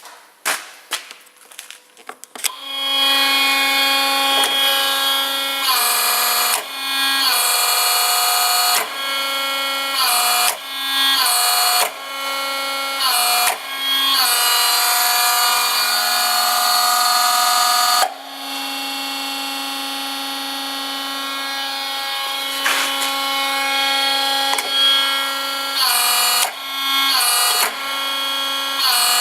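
Elu HP 121 pneumatic punch press working: a few clicks, then a loud, steady pitched whine with hissing air that cuts off and restarts many times.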